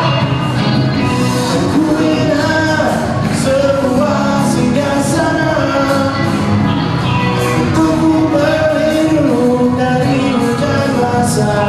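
A live band playing a song: a singer's voice over electric guitars, bass and drums, with cymbal hits throughout.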